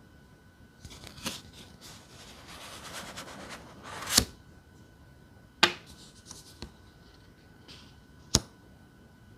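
Tarot cards being shuffled and handled: a papery rustle that builds to a loud sharp snap about four seconds in, then two more sharp card snaps, one more than a second later and one near the end.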